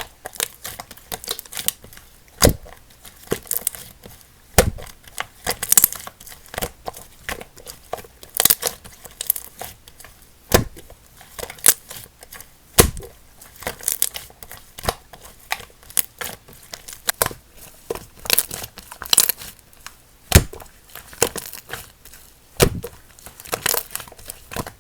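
Slime being squeezed and kneaded by hand, giving irregular crackling and sharp pops of trapped air, several a second, with a few louder pops.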